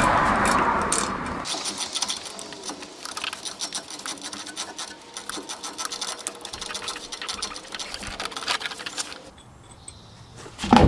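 Ratchet wrench clicking in quick runs while loosening the U-joint strap bolts at the rear axle pinion yoke. A short rushing noise opens it, and the clicking stops about nine seconds in.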